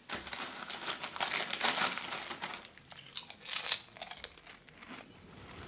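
Crinkling, crumpling handling noise in irregular bursts, starting abruptly and thinning out after about four seconds.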